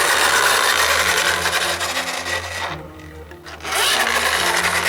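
A loud, rasping rubbing or scraping noise that breaks off about two and a half seconds in and starts again about a second later, over light background music.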